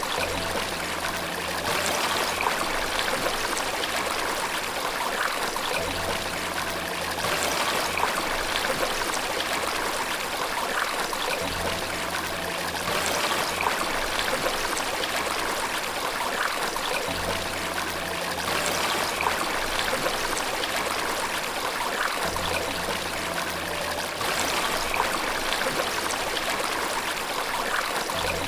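Steady rush of flowing stream water, like a small waterfall. Soft low sustained notes of background music come in every five or six seconds beneath it.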